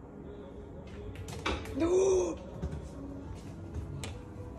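A cat climbing up into a wall cupboard: a run of clicks and knocks of claws and body against the cupboard and shelf, with a short rising-and-falling vocal sound about two seconds in.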